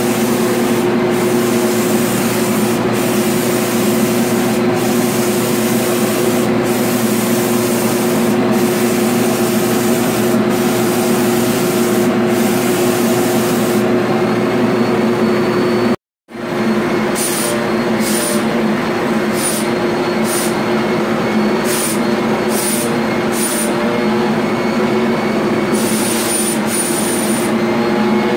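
A paint-spraying rig runs steadily: the drone of its air turbine under the hiss of air and coating from the spray gun. The sound breaks off briefly about sixteen seconds in, then carries on the same way.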